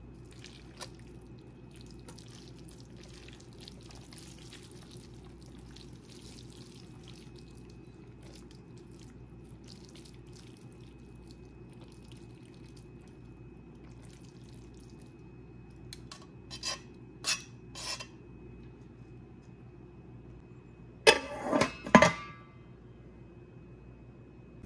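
Metal tongs moving sauced noodles in a cooker pot with soft, wet sounds, then a few light clicks of metal on the pot. Near the end, a stainless steel lid is set down on the pot with a loud, ringing metallic clatter.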